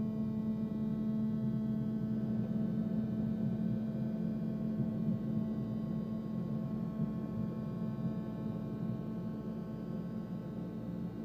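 BART train heard from inside the car, running on the track: a steady electric drive hum with a strong low tone and a stack of higher whining tones over wheel-and-rail rumble. It gets gradually quieter as the train slows.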